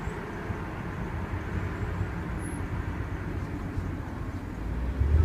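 BMW E46 rolling off the throttle, with a low, even road and tyre rumble and the engine barely heard; near the end the engine note comes back strongly as it pulls again.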